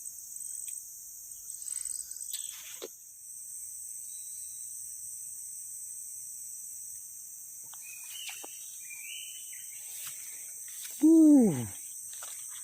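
Crickets and other insects singing in a steady high chorus. About eleven seconds in, one loud call falls in pitch, briefly louder than the chorus.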